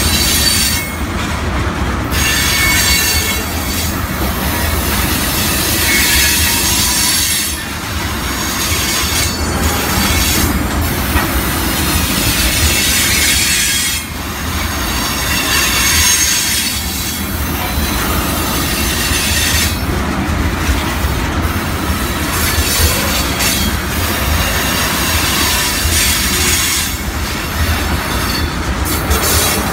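Freight train of tank cars rolling past, wheels rumbling on the rails with high-pitched wheel squeal that comes and goes in stretches.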